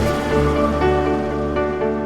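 Background music: calm, new-age-style instrumental with held notes.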